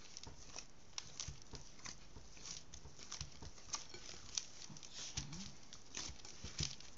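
Hand kneading pizza dough in a bowl: irregular soft pats and squelches of the dough, with the hand scraping the flour off the sides of the bowl.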